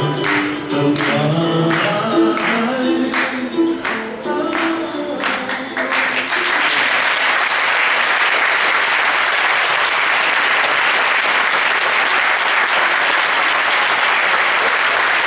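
Polynesian dance song with singing and a steady percussive beat, which ends about six seconds in; audience applause then takes over and runs on evenly.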